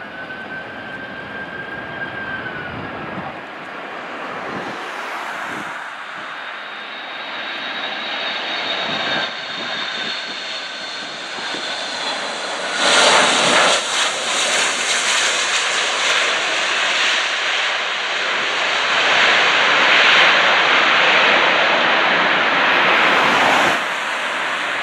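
Twin turbofan engines of a Boeing 757-300 landing: a steady jet whine on the approach, then about thirteen seconds in, just after touchdown, a sudden much louder roar as reverse thrust is applied, which carries on through the rollout and eases off near the end.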